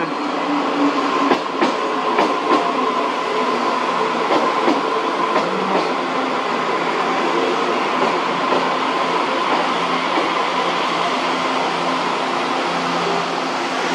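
A TRA Taroko Express (TEMU1000) tilting electric multiple unit rolling slowly alongside the platform as it arrives, with a steady electric hum and a few sharp wheel clicks in the first few seconds.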